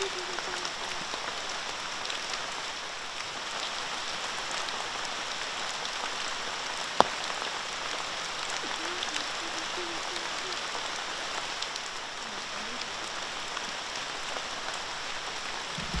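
Steady, even hiss of background noise with a single sharp click about seven seconds in.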